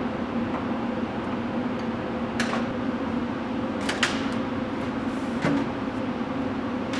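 A steady low hum, with a few sharp clicks and knocks of handling: one about two and a half seconds in, a pair around four seconds, and another near five and a half seconds.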